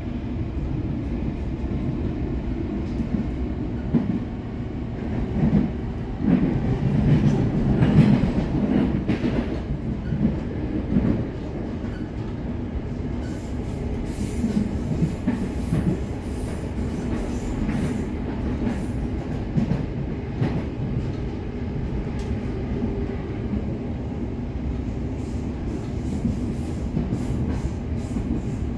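Melbourne Metro electric suburban train running between stations, heard from inside the carriage: a steady low rumble of wheels on rail, swelling louder for a few seconds about a quarter of the way through. In the second half come scattered clicks and rattles of the wheels over the track.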